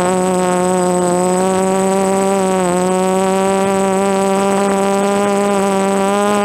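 DJI F330 quadcopter's four DJI brushless motors and propellers whining steadily in flight, the pitch dipping briefly about two and a half seconds in as the throttle changes. A thin, steady high tone sits above the motor whine.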